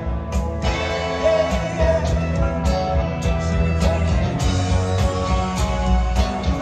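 Live rock band playing, with electric guitar, keyboards, bass and drums at a steady groove, heard from the audience at a concert.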